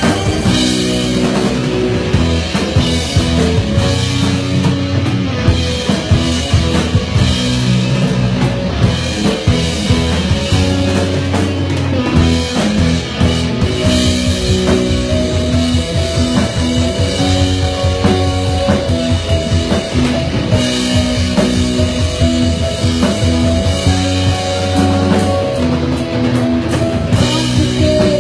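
Live rock band playing an instrumental passage, the drum kit to the fore with a steady run of drum hits over held instrument notes.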